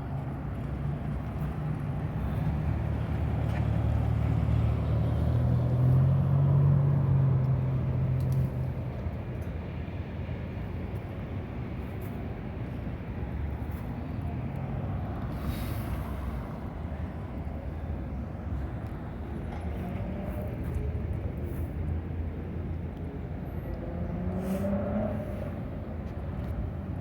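Street traffic passing on a city boulevard. A heavy vehicle's engine rumbles by, loudest about six seconds in, followed by steady car traffic. Near the end an engine rises in pitch as a vehicle accelerates.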